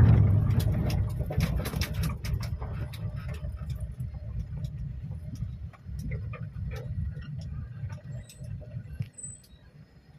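Safari vehicle moving along a rough forest track: a low, uneven rumble of engine and wind with scattered knocks and rattles, loudest at first and fading toward the end.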